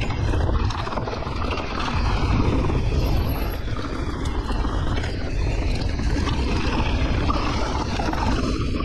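Steady rushing of wind buffeting the microphone, mixed with the rolling noise of knobby tyres on a rough trail, as a mountain bike rides downhill.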